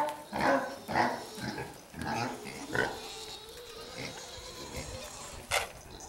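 Miniature pigs grunting in a run of short grunts, most of them in the first half, with a single short sharp clatter near the end.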